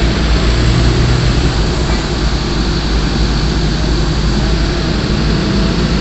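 Diesel engines of heavy construction machinery running steadily, a loud low rumble with an even hiss over it.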